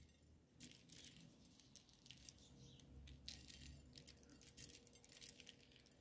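Near silence, with faint scattered ticks of sesame seeds being sprinkled onto a salad on a plate, coming in a few small clusters.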